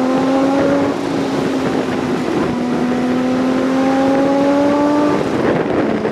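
Car engine accelerating: its pitch rises, drops about a second in at a gear change, then climbs slowly again until the throttle comes off about five seconds in.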